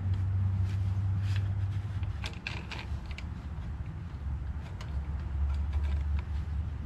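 Scattered light clicks and rattles of a fuel hose being fitted onto a replacement carburetor, over a steady low rumble.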